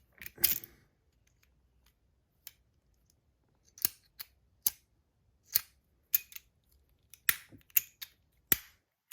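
A hand-operated, gun-shaped multifunction fidget toy being worked, giving a dozen or so sharp mechanical clicks and snaps at irregular intervals, with a short pause about a second in.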